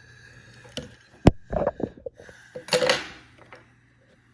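Small metal lock-cylinder parts being handled during reassembly of a deadbolt core: a few clicks, one sharp metallic click about a second in, brief rattling knocks, then a short scrape near three seconds.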